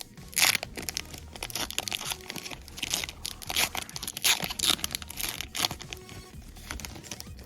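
Plastic flow-wrap trading-card pack being torn open and crinkled, an irregular run of rustles and rips.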